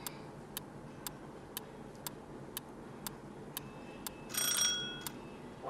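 Quiz countdown-timer sound effect: a clock ticking about twice a second, then a short bell-like ring a little over four seconds in as the time runs out.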